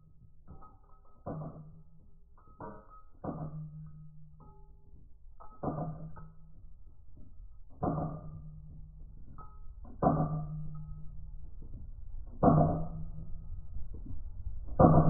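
1874 Camel model Gatling gun firing, heard slowed down: deep, drawn-out shots about every two seconds, each trailing a low hum, growing louder toward the end.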